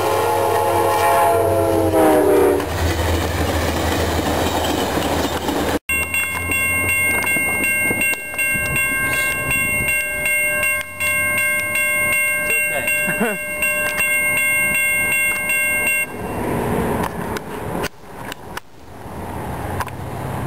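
Amtrak diesel locomotive's multi-note horn sounding, its chord dropping in pitch about two seconds in as the train passes, followed by the rushing noise of the passing train. After a break, a steady multi-note tone holds for about ten seconds, and at the very end a horn starts again with wavering pitch.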